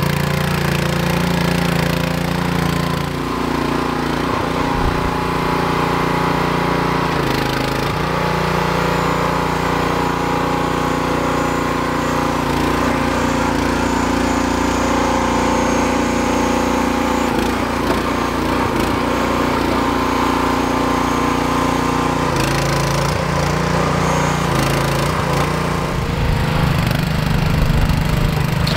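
The small engine of a tracked mini dumper running under work. It sits at a lower note for the first few seconds, runs at higher revs through most of the stretch, and drops back to the lower note a few times near the end.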